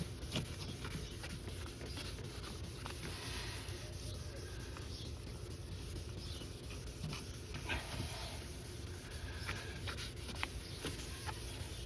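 Fine 1000-grit sandpaper rubbed over a plastic headlight lens with light pressure, making soft, irregular scratchy strokes as the yellowed surface is sanded smooth.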